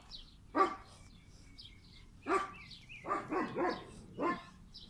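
German shepherd puppy giving about six short barks, several of them close together partway through.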